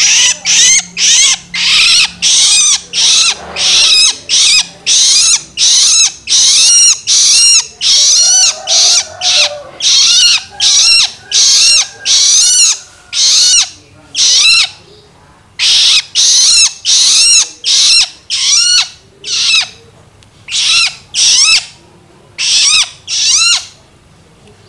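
Juvenile long-tailed shrike (cendet) giving loud, harsh begging calls (loloan) over and over, about one to two a second. The calls pause briefly just before the middle and again near the end.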